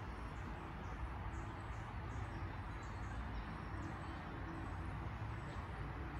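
Outdoor ambience: small birds chirping in short, high, falling notes, several a second, over a steady low rumble.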